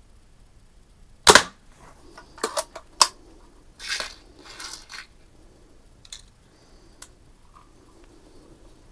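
Daisy 499B spring-air BB rifle firing once with a single sharp crack, followed by a few quick clicks and two short rasping mechanical sounds.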